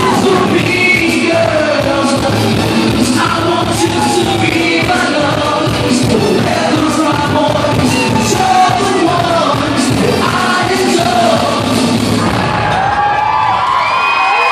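A male singer singing live into a microphone over a freestyle dance track with a steady beat, with shouts from the crowd. The beat drops out near the end.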